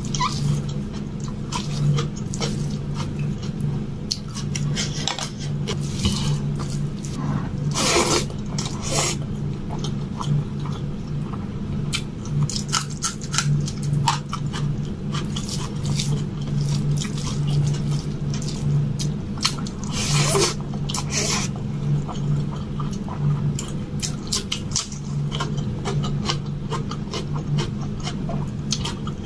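Close-up eating sounds: wet chewing and mouth clicks while eating rice and curry by hand, with fingers squishing rice into the gravy, over a steady low hum. There are a couple of louder wet sounds, one about a third of the way in and one past two thirds.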